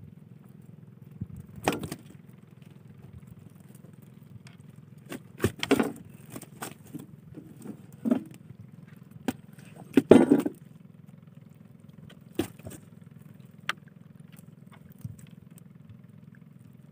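A steady low engine hum from a small fishing boat, under a string of irregular knocks from work in the boat. The loudest knock comes about ten seconds in.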